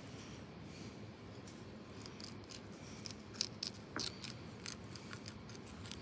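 Kitchen knife slicing along a sardine's backbone: from about two seconds in, a run of small, crisp clicks as the blade cuts along the fine bones.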